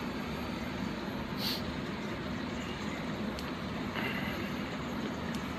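Steady outdoor background rumble with no clear single source. A faint high chirp comes about one and a half seconds in.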